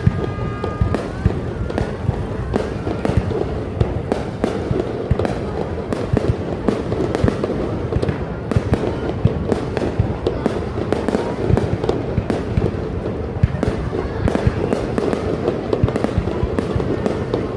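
Fireworks display going off continuously: a dense run of rapid bangs and crackles with no pause.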